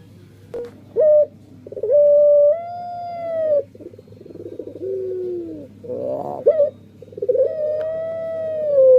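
A puter pelung dove (a Barbary dove variety) cooing. Two long, drawn-out coos, each falling slightly at the end, with a short coo before the first, a lower falling coo after it, and a quick stuttering run of notes just before the second.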